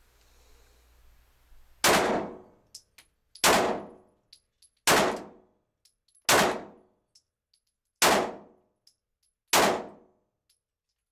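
Six 9mm pistol shots from a Glock 19 with a weapon light mounted, fired about one and a half seconds apart and each echoing off the concrete walls of an indoor range, with faint ticks between shots. The pistol cycles through the string without a malfunction.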